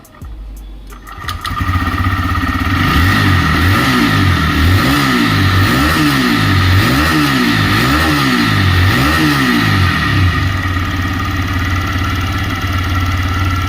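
TVS Raider 125's single-cylinder engine starting about a second and a half in, revved up and down several times, then idling evenly. It runs with no tappet tick: the valve clearance has just been set correctly.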